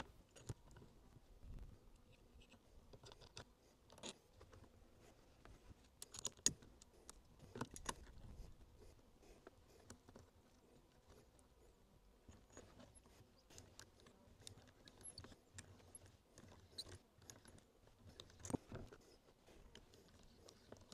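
Faint, scattered metal clicks and taps from a Timberline chainsaw sharpening jig being fitted and adjusted on a chainsaw bar, with a small cluster of louder clicks near the end.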